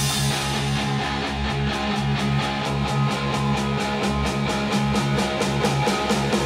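Rock-style instrumental music with guitar and a steady beat, played back through a pair of Neumann KH80 DSP studio monitors and picked up by room microphones.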